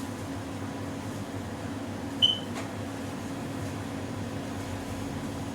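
Sandwich toasting oven running with a steady hum, with one short high electronic beep about two seconds in.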